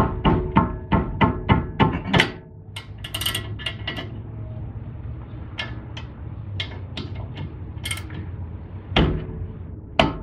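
Sharp metallic clicks and knocks of a ratchet and socket being worked onto a car's front brake caliper bolts. There is a quick run of about four clicks a second in the first two seconds, then scattered light taps, and one louder knock near the end.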